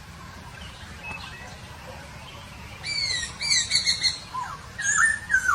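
Poksay Hongkong (laughingthrush) calling. After a quiet first half, a quick run of curving chirps starts about three seconds in, followed near the end by clear whistled notes that dip in pitch.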